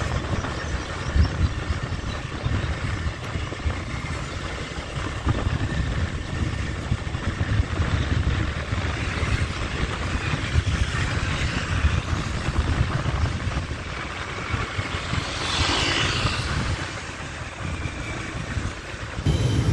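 Riding a motorbike through city traffic: uneven wind rumble on the microphone over engine and road noise. About fifteen seconds in, a hiss briefly rises and falls.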